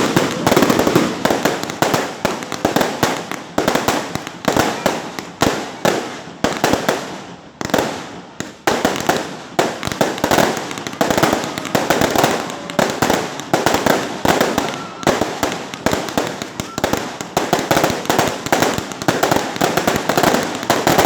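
Fireworks going off continuously: a dense, irregular run of sharp cracks and bangs that come in surges and die back.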